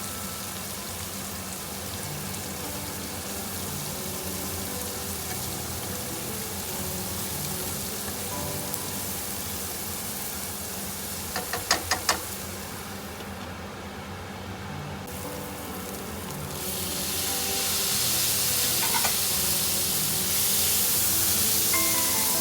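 Food sizzling in a frying pan over background music. There are four quick taps near the middle, and the sizzle turns louder and brighter about three-quarters of the way through.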